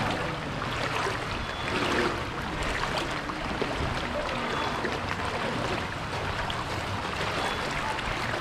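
Floodwater sloshing and splashing as someone wades through it on foot, a swash at roughly each stride.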